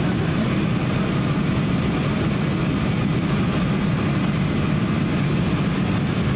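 Steady cabin noise of a Boeing 767-300 on approach: the turbofan engines running and air rushing past the fuselage, heard from inside the cabin as an even low drone.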